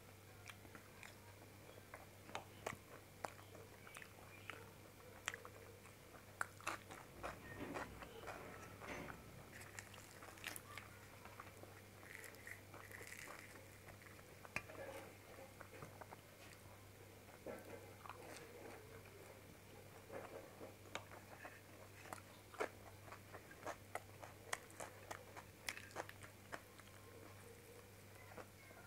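Close-up eating sounds: chewing and biting with frequent short, sharp mouth clicks and smacks as bhature and shahi paneer with rice are eaten by hand, over a steady low electrical hum.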